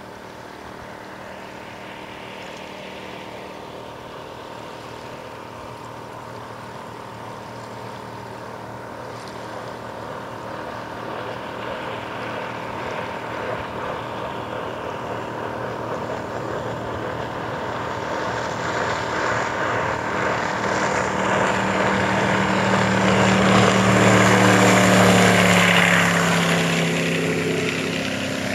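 Powerboat with a 460 cubic-inch Ford big-block V8 running flat out, its steady engine note and the hiss of its spray growing louder as it approaches. It is loudest about 25 seconds in, then the pitch drops and the sound fades as it passes.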